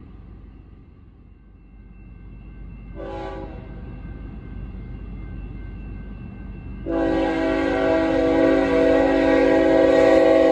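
BNSF freight locomotive's air horn sounding for the grade crossing: a brief blast about three seconds in, then a long, loud blast from about seven seconds on.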